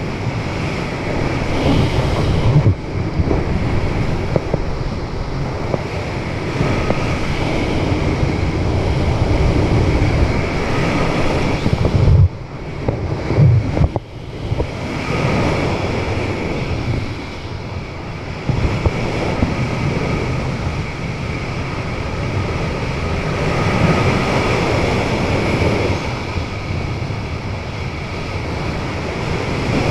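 Wind rushing and buffeting over a skydiver's camera microphone while flying under an open parachute canopy. It is gusty throughout, briefly dropping and surging again about twelve to fourteen seconds in.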